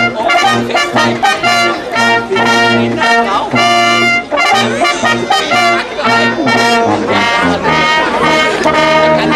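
Brass band music: trumpets and trombones playing a lively tune in short, changing notes.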